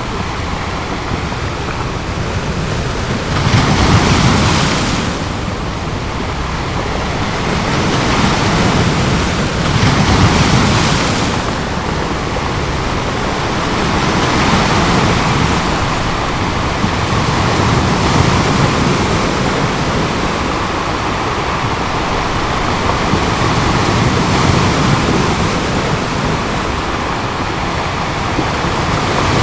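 Ocean waves breaking and washing on a beach, a steady surf rumble that swells with each wave, the biggest breaks about four and ten seconds in.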